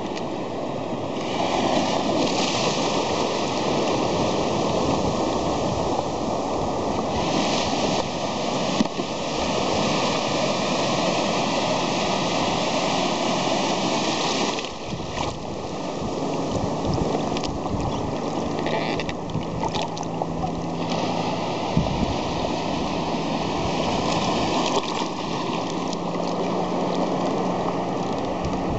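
Sea water washing and waves breaking, with wind rushing on the microphone. About halfway through, a low steady hum joins in.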